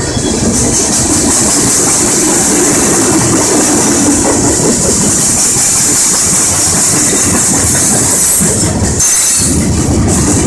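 Open-top coal hopper cars of a freight unit train rolling past at close range: a loud, steady rumble and rattle of wheels on rail with a constant high hiss over it, briefly easing in the low end about nine seconds in.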